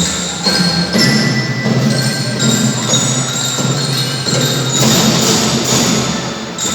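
Children's marching drum band playing a tune: ringing bell-lyre (glockenspiel) notes over a steady drum beat.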